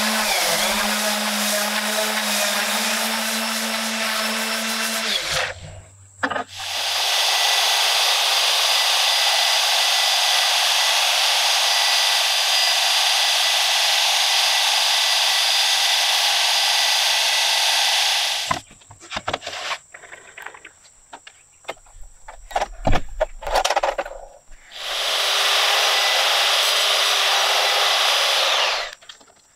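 A random orbit sander runs on a wooden end-grain cutting board and stops. A jobsite table saw then runs steadily for about ten seconds, followed by scattered knocks and a thump as wood is handled, and the saw runs again for a few seconds before cutting off near the end.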